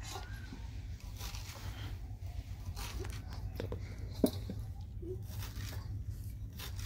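Fresh green coriander being cut by hand with a small knife, its stems crunching and tearing in short irregular cuts, with a sharper click about four seconds in, over a steady low hum.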